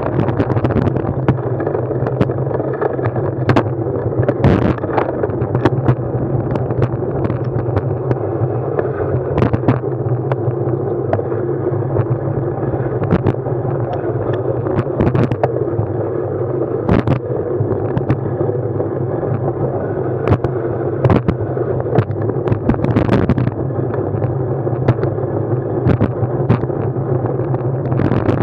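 Steady ride noise from a mounted Garmin Virb Elite action camera: a constant rumble of wind and motion, broken by frequent sharp knocks and rattles, a few every second.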